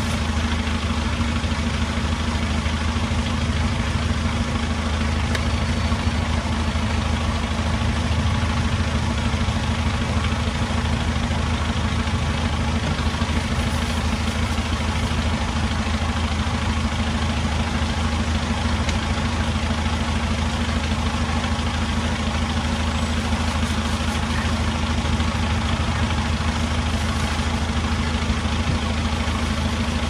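An engine idling steadily, a constant low hum that does not change speed.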